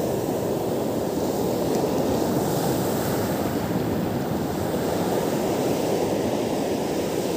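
Surf breaking and washing up a sandy beach: a steady rushing noise, with wind on the microphone.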